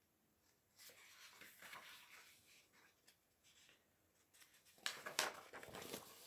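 Paper pages of a picture book rustling as they are handled and turned, with a louder rustle near the end as a page flips over.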